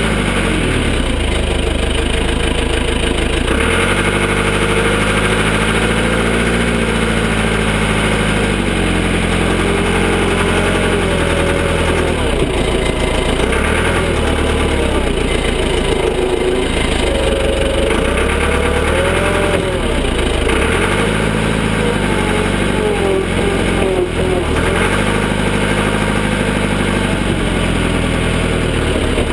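Cat 416 backhoe loader's diesel engine running under varying load, its note rising and falling every few seconds as it works.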